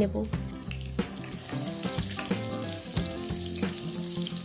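Potato pieces sizzling as they fry in hot oil in a non-stick kadai, with a spatula knocking and scraping against the pan as they are stirred. The sizzle grows louder about a second and a half in.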